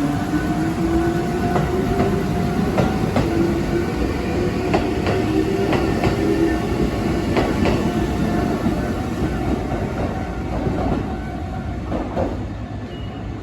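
Kotoden 1100 and 1070 series electric train pulling out: a motor whine rising slowly in pitch as it gathers speed, with wheels clacking over rail joints, fading near the end as it moves away.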